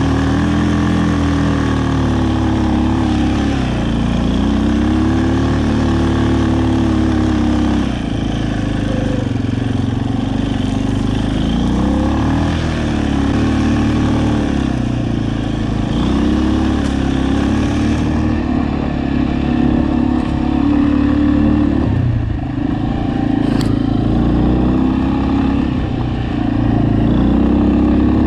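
Aeon Crossland 300 ATV engine running under way, its pitch dropping and climbing again every few seconds as the engine speed changes.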